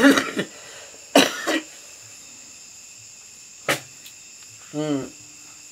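A man coughing: a hard cough at the start and another about a second in, then a short voiced grunt near the end, over steady high-pitched insect trilling. A single sharp click a little past the middle.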